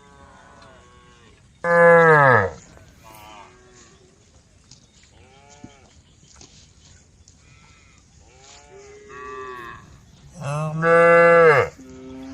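Cows mooing. Two loud, close moos come about two seconds in and near the end, the first dropping in pitch as it ends, with fainter moos from other cows in between.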